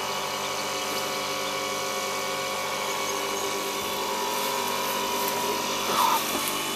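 Refrigeration condensing unit running: a steady hum and whine with several fixed tones, with a short louder noise about six seconds in.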